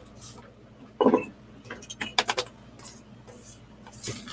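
A brief muffled voice about a second in, then a quick run of sharp clicks and light knocks, with fainter clicks near the end.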